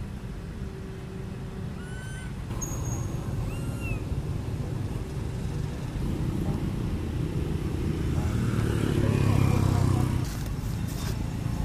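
Low engine rumble of a passing road vehicle, building to its loudest about nine seconds in, then dropping away. A few short high chirps sound a couple of seconds in.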